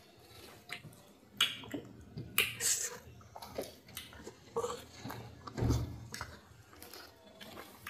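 Close-up eating sounds of oats fufu and slimy okra soup eaten by hand: irregular wet smacks of lips and fingers, sticky squelches and chewing, with one heavier, lower sound about halfway through.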